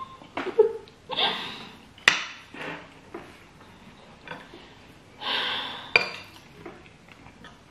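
Metal spoon and fork scraping and clinking on ceramic plates while scooping up food, with two longer scrapes and two sharp clinks, about two seconds in and again about six seconds in.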